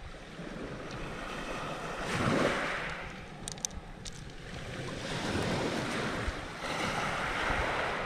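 Sea waves washing onto a pebble beach: a swell about two seconds in and a longer one from about five seconds, over steady wind noise on the microphone.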